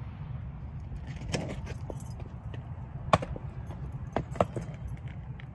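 Several sharp knocks and clicks, the loudest about three seconds in and two more close together near four seconds, over a steady low rumble.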